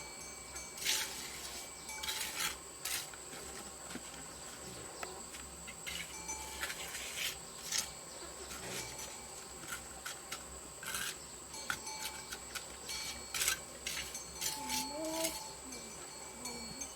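Irregular rasping, scraping strokes over a steady high insect drone.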